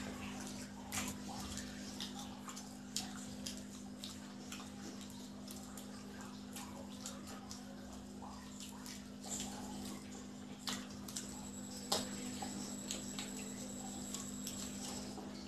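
Close mouth sounds of people biting into and chewing fried egg devils: scattered wet clicks and smacks, the sharpest about twelve seconds in, over a steady low hum.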